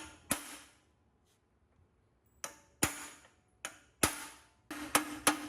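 Sharp metal knocks and clinks, six in all, each ringing briefly, of the kind made by steel parts being struck or set down. Near the end a regular percussive beat of about three strikes a second begins.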